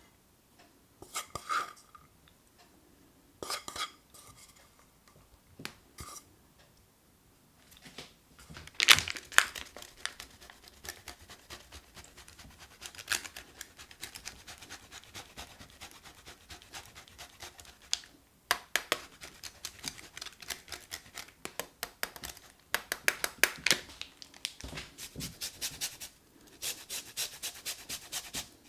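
Shredded mozzarella is scattered by hand into a stainless steel pan, with a few short bursts, some ringing lightly off the pan. Then a block of parmesan is rasped over a handheld grater in quick, repeated scraping strokes. Near the end a lemon is zested on the grater in fast, even strokes.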